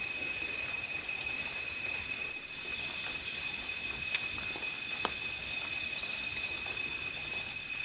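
Night insects in the forest keep up a steady, high-pitched chorus: a constant trill with a higher pulsing buzz about once a second.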